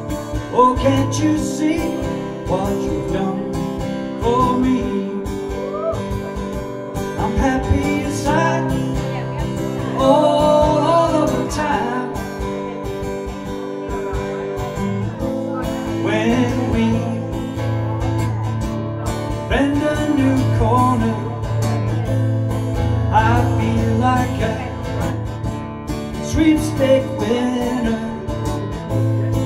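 Solo acoustic guitar playing a song, strummed chords under picked melody lines.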